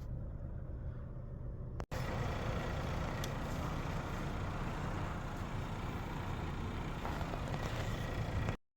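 Volkswagen Polo Liftback's 1.4-litre engine running steadily, with little noise from its freshly serviced alternator. The sound drops out for an instant just under two seconds in and cuts off suddenly near the end.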